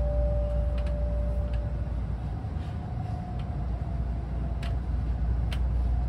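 Steady low rumble of a Tokaido Shinkansen N700A train, heard from inside the passenger car, with a few faint clicks. The last note of the onboard chime melody dies away in the first two seconds.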